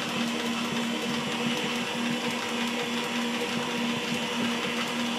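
KitchenAid stand mixer running steadily at low speed, its wire whip beating eggs into creamed butter and sugar in a stainless steel bowl: an even motor hum with no change in pitch.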